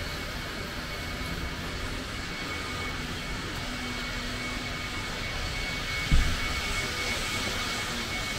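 Steady outdoor city noise, a mix of low rumble and hiss with a faint steady high tone, swelling slightly toward the end. A single sharp thump about six seconds in is the loudest moment.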